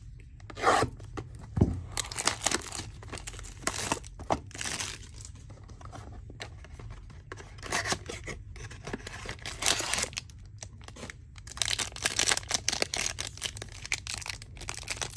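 Packaging on a 2022 Topps Triple Threads hobby box being torn and crinkled open, in a series of short irregular rips and rustles.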